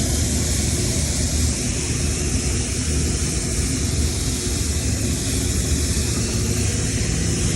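Steady hiss of water spraying from a hose onto an air conditioner's condenser coil as it is washed down, with a low rumble underneath.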